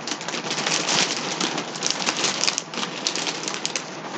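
Packaging crinkling and rustling in close-up as a parcel of yarn is unpacked: a dense, continuous crackle of many small clicks.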